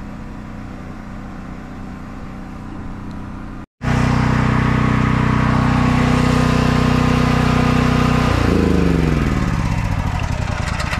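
A quieter steady mechanical hum for the first few seconds, then, after a brief cut, a portable generator's engine running loud and steady. About eight seconds in, its engine note falls in pitch.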